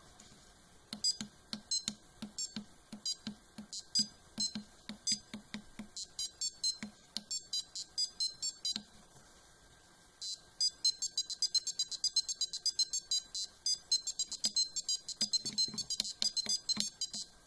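Arduino-driven piezo buzzer playing a tune of short beeping notes at changing pitches. The notes start about a second in, pause for about a second a little past halfway, then return in a quicker run.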